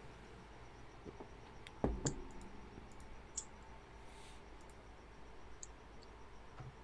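A few scattered computer mouse clicks, with a duller knock about two seconds in that is the loudest sound.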